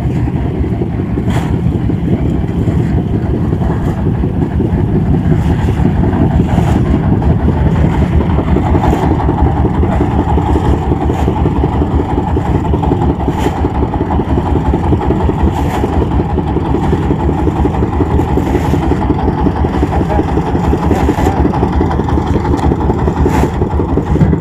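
A boat engine running steadily close by, a fast, even chugging that doesn't change in speed.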